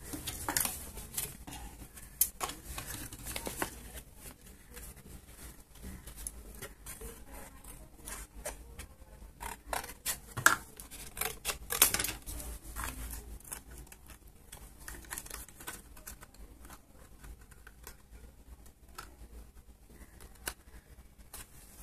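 Scissors snipping thin card, with the card rustling and tapping as it is handled: scattered irregular clicks and rustles, a couple of sharper ones around the middle.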